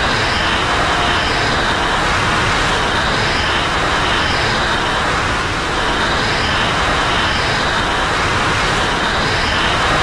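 Godzilla Terrestris sound effect: a steady rumbling hiss, with a faint pair of high tones recurring about every three seconds.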